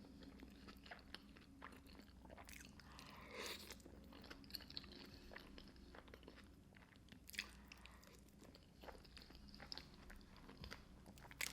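Faint close-up chewing of creamy fettuccine alfredo covered in crushed Flamin' Hot Cheetos: scattered small crunches and wet mouth clicks.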